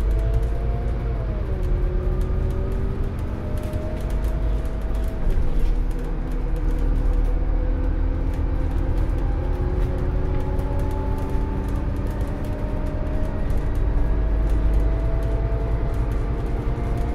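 Scania N250UD double-decker bus's five-cylinder diesel heard from the passenger saloon while the bus pulls away. The engine note drops with automatic gear changes about a second in and again about five seconds in, then rises slowly and steadily as the bus gathers speed.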